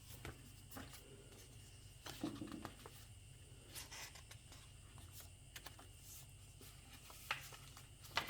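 Paper pages of a handmade junk journal being turned and handled: soft rustles and light clicks, with two sharper taps near the end, over a faint steady low hum.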